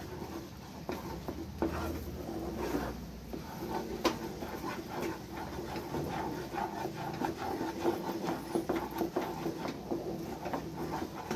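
A wooden spatula scrapes and stirs thick Mysore pak batter around a stainless steel kadai: a continuous rubbing scrape with now and then a sharper tap against the pan. The gram flour, sugar and ghee mixture has thickened and is starting to dry at the edges, nearly done.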